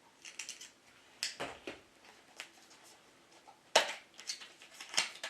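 Small cardboard box being handled and opened, with scattered irregular crinkles, scrapes and taps as the tamper-evident hologram seal is broken. A sharp snap about four seconds in is the loudest sound.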